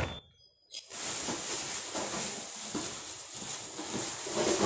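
A brief knock, then plastic shopping bag rustling and crinkling loudly and irregularly as items are rummaged out of it, stopping abruptly near the end.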